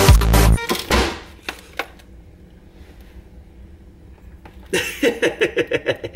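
Electronic background music stops abruptly about half a second in, leaving quiet room tone with a couple of small knocks. Near the end a man laughs in a quick run of bursts.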